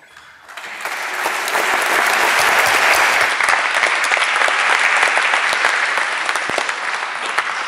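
Audience applauding: dense clapping that swells over the first second or two, holds steady, then eases off near the end.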